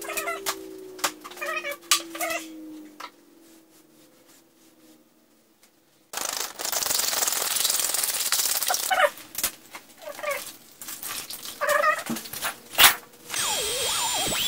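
A cat meowing several times in short calls, with a stretch of hissing noise in the middle and a sharp click near the end.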